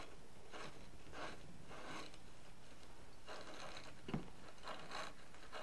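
Faint, repeated scrubbing strokes on copper pipe, cleaning the metal bright before it is fluxed and soldered.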